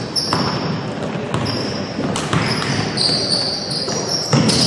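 Basketball game play on a gym court: the ball bouncing on the floor several times, with short high squeaks of sneakers.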